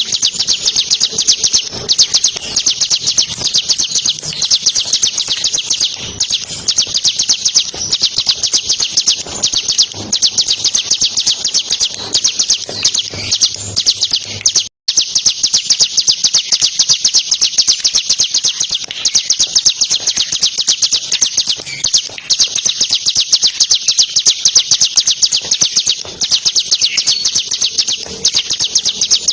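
Bar-winged prinia (ciblek) singing a fast, continuous rattling trill of high, clear notes. About halfway through, the sound cuts out for a split second.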